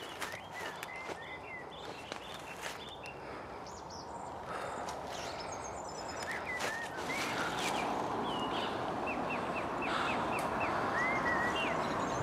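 Footsteps crunching through dry fallen leaves, getting louder in the second half, while small birds chirp and whistle short calls, including a quick run of chirps near the end.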